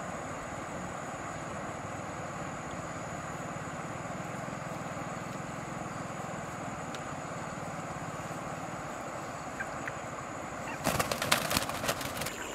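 A black chicken flapping its wings hard, about eleven seconds in, in a quick run of loud wing beats lasting about a second and a half, as it flutters up onto a branch. Before that there is only a steady background hiss with a thin high whine.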